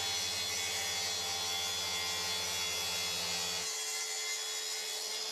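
Makita plunge-cut circular saw running on its guide rail, cutting through a parquet floor plank: a steady whine with the rasp of the blade in the wood. A low hum underneath stops a little past halfway.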